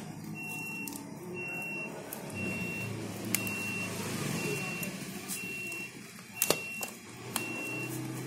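A high electronic beep repeating evenly, about once a second, over a low hum, with a few sharp knocks, the loudest about six and a half seconds in, as a carbon slip-on muffler is pushed onto a motorcycle's exhaust pipe.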